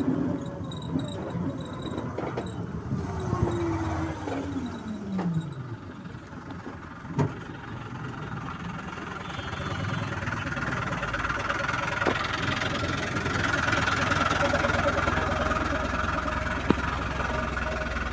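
Road and engine noise from inside a small moving passenger vehicle in traffic. A whine falls steadily in pitch a few seconds in, a sharp knock comes about seven seconds in, and the noise grows louder in the second half as a large vehicle runs alongside.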